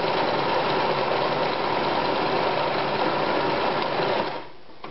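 Anker 220 Super Stretch sewing machine running steadily at speed, sewing in reverse at maximum stitch length through four layers of dense roller-blind fabric, and stopping near the end.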